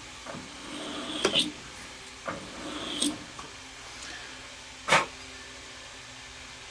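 A few short knocks and rubbing clatters of things being handled, the loudest a sharp knock about five seconds in, over a faint steady low hum.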